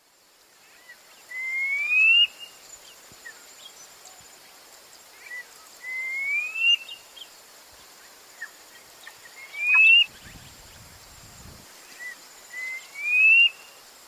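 Brown quail (Coturnix ypsilophora) calling: four rising whistles about four seconds apart, each lasting about a second and led by a short lower note, over faint natural background.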